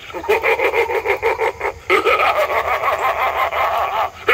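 Spirit Halloween Young Crouchy clown animatronic playing its recorded voice track through its small built-in speaker, turned up to full volume. The voice pulses rapidly and shifts in pitch, changes character about two seconds in, and breaks off briefly just before the end.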